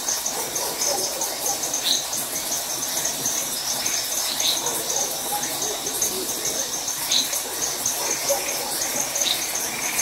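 Rural night chorus: crickets trilling in a fast, steady pulse, with frogs and tree frogs calling underneath and a short high chirp every two to three seconds.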